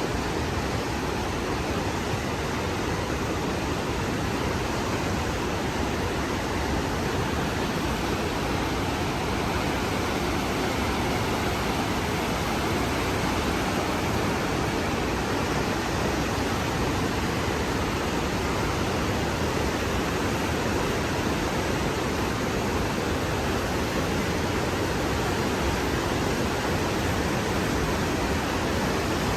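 The Rheinfall, the Rhine's great waterfall, pouring in a loud, steady rush of falling water.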